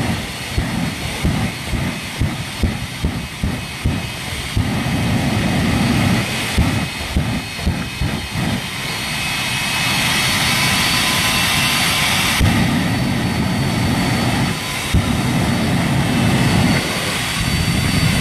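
Jet engine of a jet-powered monster fire truck running hard, shooting flame into a car: a loud steady rush with a high whine, and uneven low rumbling pulses on top.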